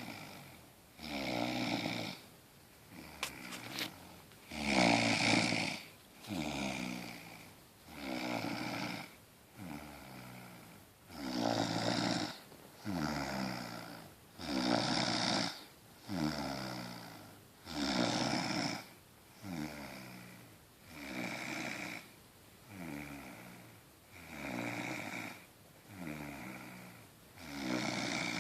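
Rhythmic snoring, each breath in and out a rattling, pig-like snore that the uploader calls "oink oink", one about every one and a half seconds, alternating louder and softer.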